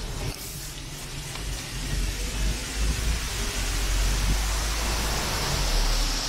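Street traffic: a vehicle's low rumble with tyre hiss that grows louder over the second half.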